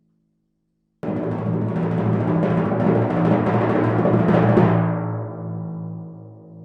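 Timpani drum roll: a rapid, loud roll starts suddenly about a second in, holds for about three and a half seconds, then stops and the drum rings on, fading.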